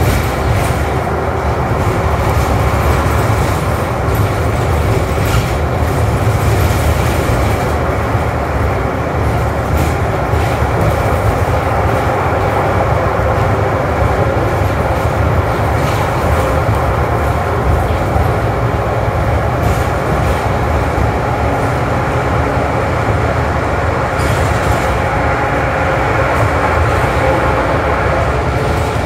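Cabin noise inside a New Flyer XD40 diesel city bus on the move: a steady low drone of engine and tyres on the bridge roadway, with a few short knocks and rattles from the bus body.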